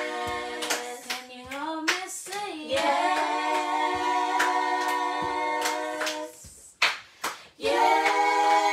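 A small group singing a worship song without instruments, holding long notes, with hand claps. The singing breaks off briefly about six and a half seconds in, with a couple of claps in the gap, then starts again.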